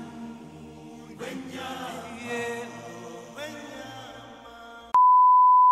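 Chanted choral music, a lead voice with a choir answering. About five seconds in it cuts to a loud, steady, high beep.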